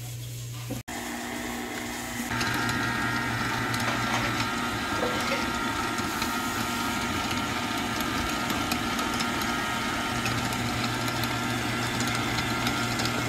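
Electric stand mixer running steadily, its dough hook kneading bread dough: a steady motor hum with a whine over it, getting louder about two seconds in.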